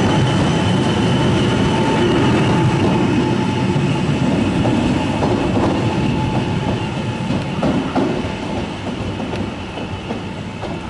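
Electric regional train running past close by: a loud rumble with a steady whine that slowly fades. Over the second half, sharp clicks of train wheels crossing rail joints stand out as a Hitachi double-deck train comes in.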